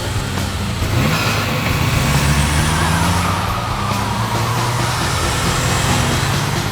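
Car engine running hard under load, its pitch climbing about a second in, with a high whine gliding down in the middle.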